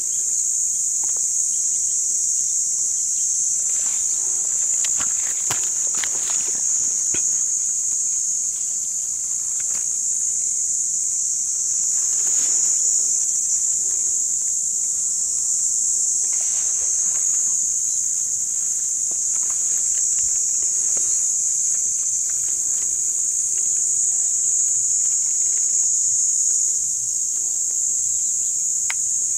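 Steady high-pitched insect chorus, with a few soft rustles and scuffs from handling on the ground a few seconds in and again around the middle.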